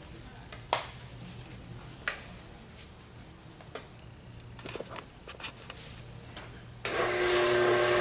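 A benchtop spindle sander is switched on near the end: its motor starts abruptly and runs with a steady hum. Before that there are a few light clicks and taps of handling.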